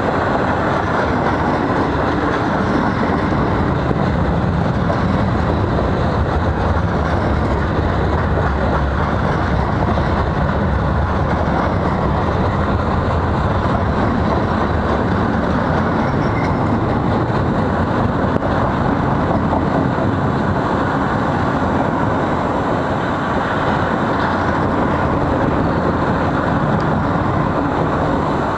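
Freight cars of a long mixed freight train rolling past close by: a steady rumble of steel wheels on the rails.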